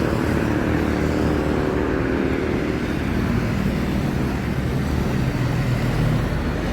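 Tour bus engine running close by amid road traffic: a steady low engine note over road noise.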